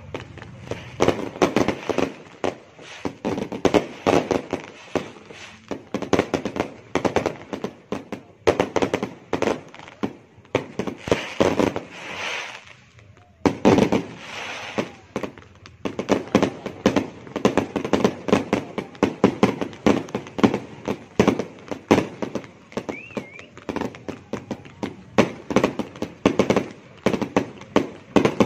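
Fireworks and firecrackers going off in quick, overlapping bangs and crackles, with a short lull about halfway through.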